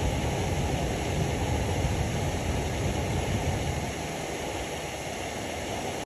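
A car's newly replaced HVAC blower motor running, a steady rush of fan air with no knocking: the dash lawn-mower noise is gone now that the old blower, which a mouse had got caught in, has been replaced.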